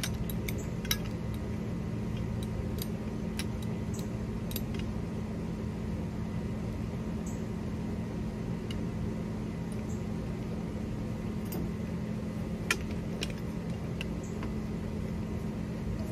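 Light metallic clinks and ticks, scattered and irregular, as a hand lever tube bender is fitted and lined up on copper refrigerant line, with one sharper click about three-quarters of the way in, over a steady low hum.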